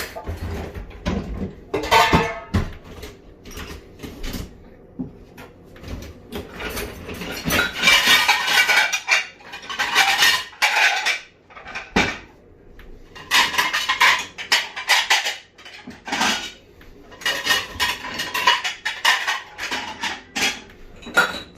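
Dishes and cutlery clattering and clinking as a dishwasher is hurriedly unloaded, with dense rattling bunches of knocks every few seconds.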